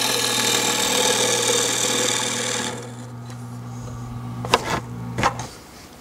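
Bowl gouge cutting green apple wood spinning on a mini lathe: a steady shearing hiss over the lathe motor's hum. The cut stops about two and a half seconds in, leaving the motor hum alone; the hum stops about five and a half seconds in. Two knocks come near the end.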